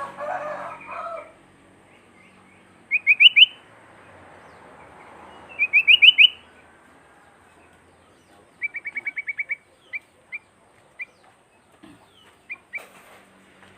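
Sooty-headed bulbul (kutilang) singing: a short scratchy sound at the start, then two loud bursts of quick rising chirps a few seconds apart, a fast trill of about nine notes, and a few single chirps near the end.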